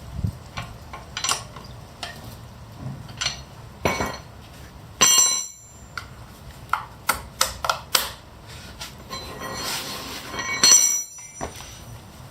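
Scattered knocks and metallic clinks from work on a car wheel, with two louder ringing metal clanks about five seconds in and near the end.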